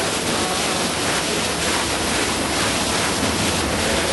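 Underground stream rushing steadily over rocks in a cave.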